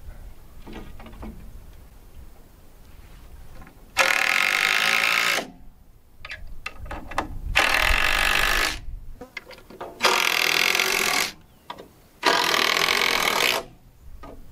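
Power drill driving long wood screws: four runs of the motor, each lasting about a second or a little more, with short pauses between.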